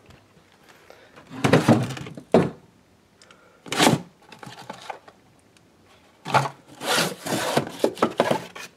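Rummaging by hand through cardboard boxes, plastic bags and a wooden drawer: several loud bursts of rustling, scraping and wooden knocks, with a longer run of clatter near the end.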